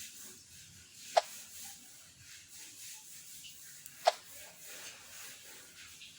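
Two short, sharp clicks about three seconds apart over a faint hiss.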